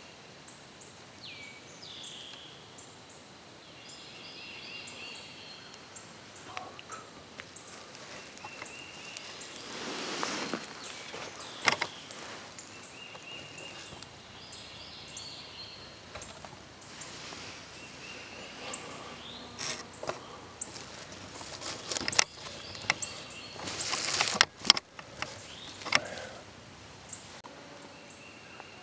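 Woodland background with songbirds chirping now and then, and bursts of rustling and sharp knocks from brush and the camera being handled as it is moved and set up, heaviest in the second half.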